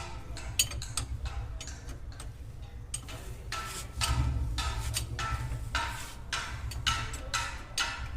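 Irregular metallic clicks and taps of hand tools working on a motorcycle's rear wheel and chain set, roughly two a second and each with a short ring, over a steady low hum.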